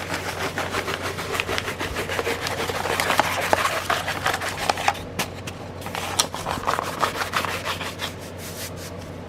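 A framed paint-by-numbers canvas and its packaging being handled: continuous rubbing and scraping with many small clicks and knocks, busiest in the middle and easing off near the end.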